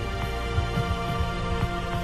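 Background music: sustained held tones over a steady, repeating low beat.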